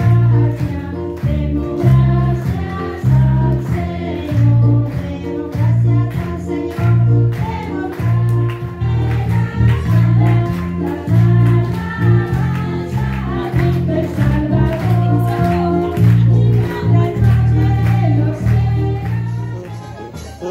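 A song with voices singing together over a steady bass beat.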